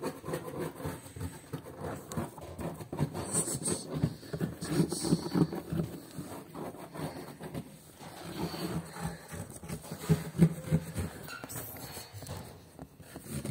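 Irregular rubbing, scraping and light knocks as a cat moves through a cardboard-box tunnel and brushes its fur against the phone recording from inside, with a few sharper scrapes about four to five seconds in.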